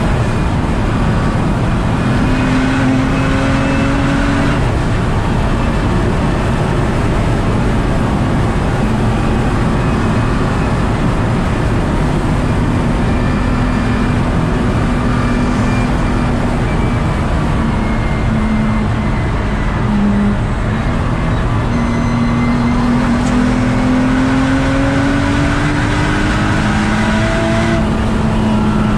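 Nissan GT-R R35's twin-turbo V6 pulling hard at track speed. Its note climbs under acceleration and drops back sharply a few times at gear changes, over constant tyre and wind noise, heard from on board the car.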